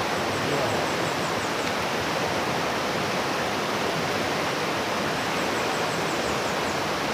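Fast river rapids rushing over rocks: a steady, even noise of white water.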